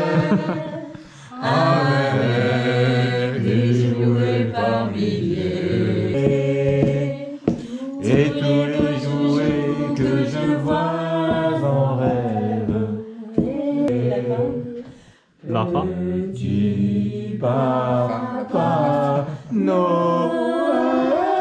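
A small group of people singing together, largely unaccompanied, moving between long held notes.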